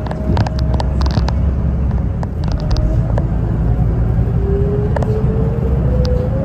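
Inside a city bus: a steady low engine rumble with a drivetrain whine that rises steadily from about four seconds in as the bus picks up speed, and sharp rattles and clicks of the bus interior in the first few seconds.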